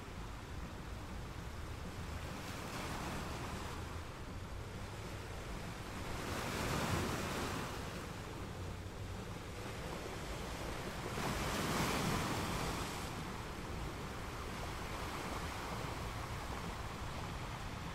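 A steady rushing noise with no distinct events. It swells up twice, about five seconds apart, then falls back.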